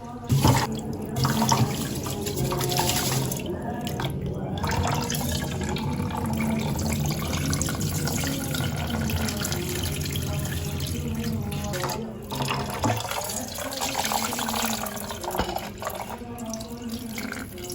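Water running steadily from a tap into a sink, dipping briefly about two-thirds of the way through.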